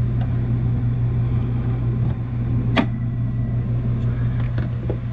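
Steady low machine hum with one sharp click a little under three seconds in and a couple of fainter clicks near the end.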